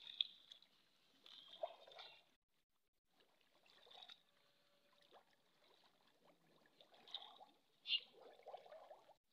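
Faint splashing and trickling of shallow water as hands grope through it among weeds, in short broken patches; the loudest is a brief sharp splash about eight seconds in.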